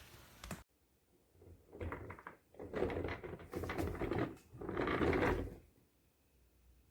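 Plastic office-chair caster wheels and chair base being handled: scraping and knocking in three stretches of about a second each, loosest casters wobbling and pulled from their sockets.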